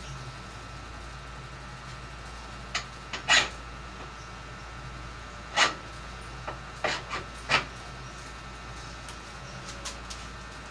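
A handful of short, rasping rubs and scrapes as a hand works at the rim of a scooter's alloy wheel, over a steady low hum.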